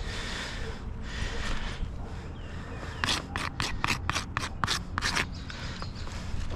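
A run of about eight quick rubbing or scraping strokes over about two seconds, midway through, over a steady outdoor background.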